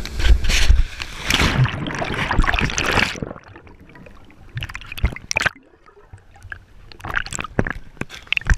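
Water rushing and spraying hard against an action camera, cutting off abruptly about three seconds in as the camera goes under. What follows is muffled underwater gurgling with scattered bubble clicks, then short splashes and drips as it breaks the surface again.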